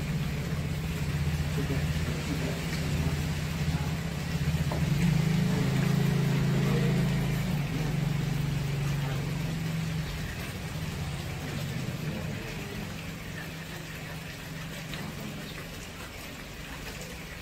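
A motor vehicle engine idling, a steady low hum that shifts slightly a couple of times and fades over the last several seconds.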